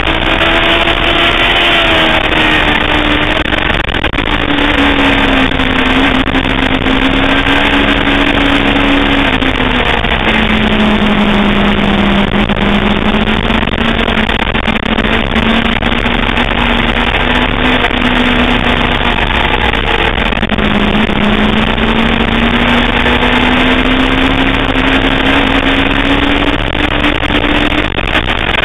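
A sportbike engine runs hard at track speed under heavy wind rush, its note shifting as the rider works the throttle. The pitch drops sharply about ten seconds in, holds low for a while, then climbs steadily over the last several seconds.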